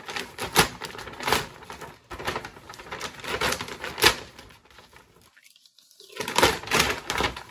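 Paper grocery bag being torn open at its sealed, taped top: irregular crinkling and tearing of stiff paper with sharp crackles. It pauses briefly about two-thirds through, then starts again.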